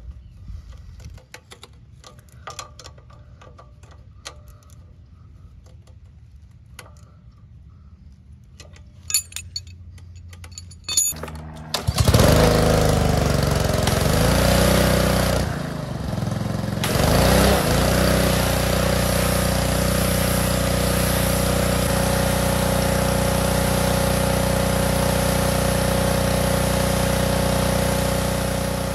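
Faint metal clicks of a wrench tightening the jam nut on a pressure washer's unloader valve. About halfway through, the Ryobi pressure washer's Honda engine comes in loud; its speed dips and recovers, then it runs steadily along with the hiss of the high-pressure spray.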